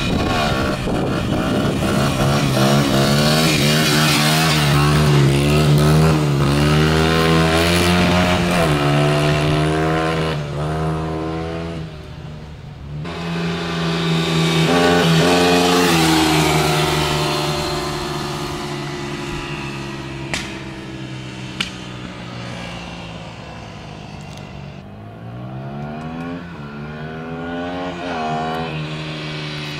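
Dirt bike engine revving hard, its pitch climbing and dropping back again and again as it shifts up through the gears. It passes loudest twice, fades off, then rises again near the end, with two sharp ticks about two-thirds of the way through.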